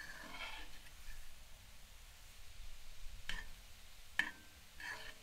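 Cooking sounds at a wood stove: a short scrape in the first second, two sharp clicks around three and four seconds in, and another brief scrape near the end.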